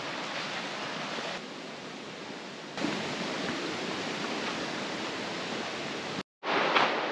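Creek water rushing in a steady hiss. It cuts out for a moment about six seconds in and returns a little louder, with a few sharper rustles.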